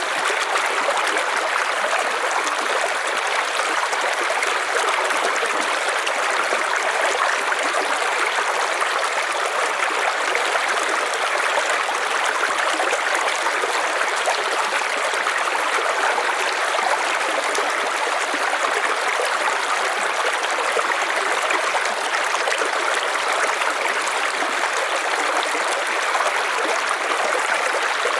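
River water flowing steadily over stones, an even rushing and trickling.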